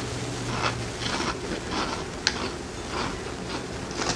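Close-up chewing and crunching of small chips: a run of irregular crisp crunches, with a sharper one a little past two seconds in.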